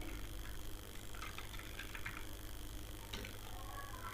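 Steady low electrical hum and hiss of background noise, with a faint click about three seconds in.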